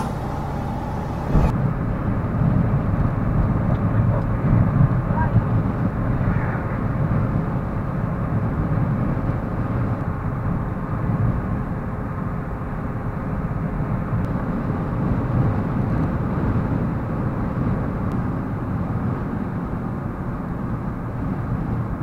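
Steady low rumble of road and engine noise inside the cab of an ambulance-conversion RV cruising on a highway. About a second and a half in, the sound turns duller, with less hiss on top.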